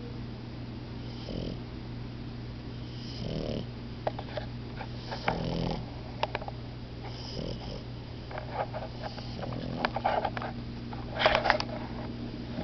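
French bulldogs snoring in their sleep, a snore about every two seconds, with a louder snore near the end, over a steady low hum.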